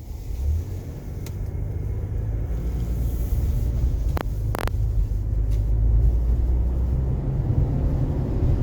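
Roof-rack crossbar wind noise heard inside a 2019 Toyota RAV4's cabin through the open sunroof at about 30 mph: a low rumble that grows steadily louder as the car gathers speed. Two short clicks come about halfway through.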